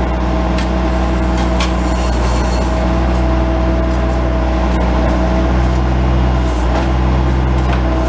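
Bobcat S185 skid steer loader's turbo diesel engine running steadily while driving the 911 backhoe attachment as it digs, with a steady whine over the engine note and a few light knocks.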